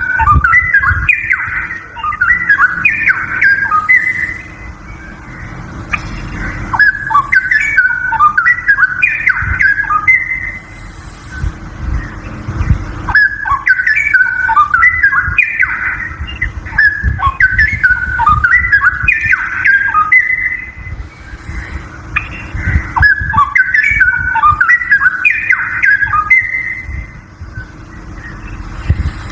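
Straw-headed bulbul (cucak rowo) singing loud, whistled warbling phrases a few seconds long, repeated about five times with short pauses between them, over a low background rumble.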